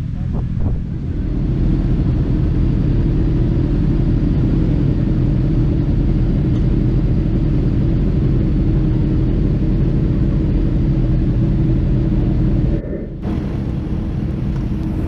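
Motorcycle engines idling steadily, a deep even rumble with no revving. The sound dips and changes abruptly a couple of seconds before the end.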